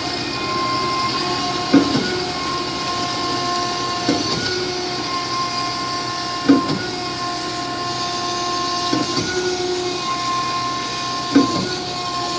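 A machine running with a steady whine of several tones, and a short knock about every two and a half seconds.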